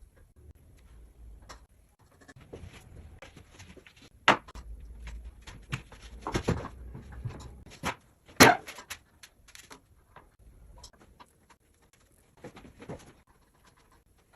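Household objects being handled in a small room: scattered knocks, clicks and rustling, with two sharp knocks about four and eight seconds in.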